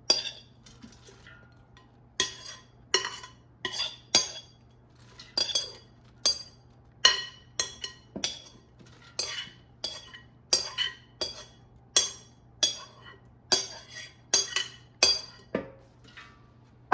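A metal kitchen utensil clinking and scraping against a dish again and again, a little more than one sharp clink a second, as shaved Brussels sprouts are scooped into an air fryer basket.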